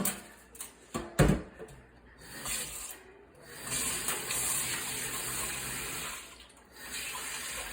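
Kitchen sink tap running while dishes are washed by hand, after a couple of sharp knocks near the start. The water stops briefly near the end and then runs again.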